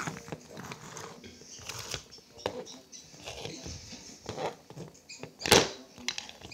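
Plastic toy horse figurines being moved and set down by hand on a wooden tabletop: scattered light taps, scrapes and rustles, with one louder thump about five and a half seconds in.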